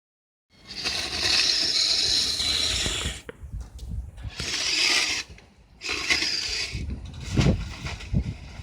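Kyosho Blizzard SR radio-controlled tracked vehicle's electric motor and gear and track drive running in three bursts with short pauses between them, with a couple of low thumps near the end.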